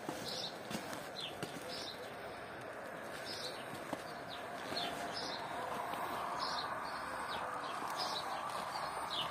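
Small birds chirping: short high chirps repeated about every second or so, over a steady background rush that grows a little louder about halfway through.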